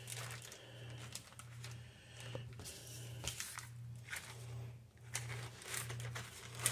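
A plastic zip-top sandwich bag and Humidipak humidity packets crinkling faintly as the packets are handled and slid into the bag. Underneath is a low hum that pulses evenly, a little faster than once a second.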